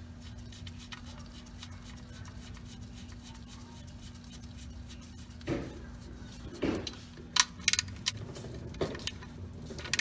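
Oil drain bolt being refitted and tightened into the oil pan: a few sharp metallic clicks and clinks of the wrench about seven to eight seconds in, over a steady low hum.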